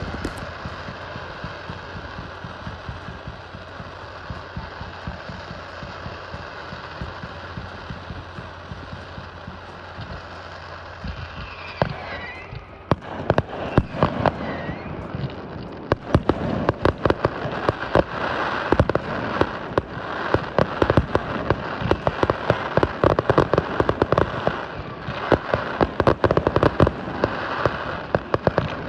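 Fireworks display: a steady background rumble at first, then about twelve seconds in a short whistle, followed by rapid bangs and crackling that grow denser and continue to the end.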